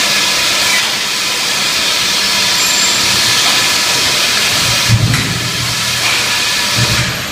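Loud steady hissing from cattle slaughter-line equipment, with faint steady machine tones running through it. Two low thuds come about five and seven seconds in.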